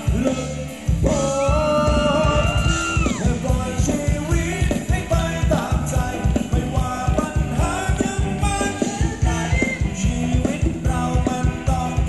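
Thai ramwong dance music from a live band: a fast, steady beat under a singing voice, which holds one long note from about one to three seconds in.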